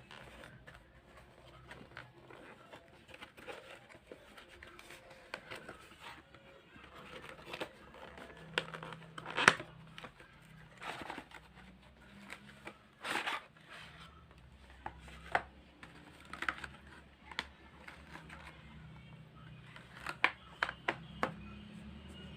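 Packaging being handled and opened by hand: rustling and crinkling of plastic and cardboard, with scattered sharp clicks and snaps, the loudest about nine and a half seconds in.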